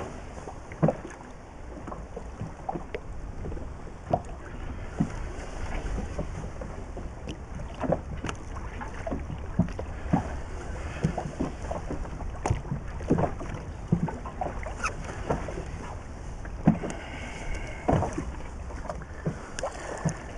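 Sea water lapping against the hull of an inflatable boat, with a steady low wind rumble on the microphone and scattered, irregular knocks and taps.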